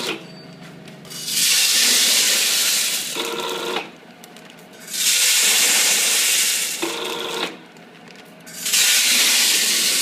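Automatic vertical packing machine bagging peanuts, running through its repeating cycle: a loud hissing rush of about two seconds comes three times, roughly every three and a half seconds. Each rush is followed by a short whirring tone, over a steady low machine hum.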